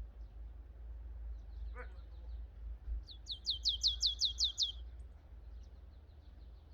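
A small songbird singing: a quick run of about nine sharp notes, each sliding down in pitch, a little past the middle, with fainter chirps around it. A low steady rumble sits underneath.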